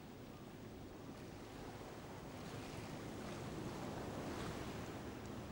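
Water rushing and splashing along the hull of a moving boat, with wind, slowly growing louder.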